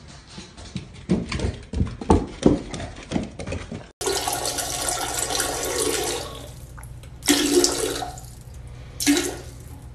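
A series of dull thumps in the first half, then water sloshing and splashing as a dog drinks from a toilet bowl: a steady wash for a couple of seconds, then two separate bursts of lapping.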